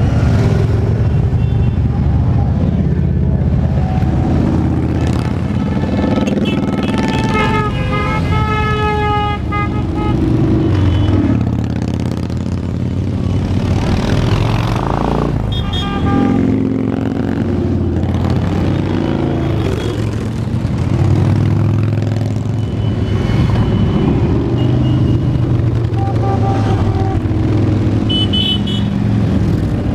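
Big V-twin cruiser and touring motorcycles rumbling past at parade speed, one after another, with one bike revving up about halfway through. A horn blares for about three seconds roughly a quarter of the way in, and shorter toots follow near the end.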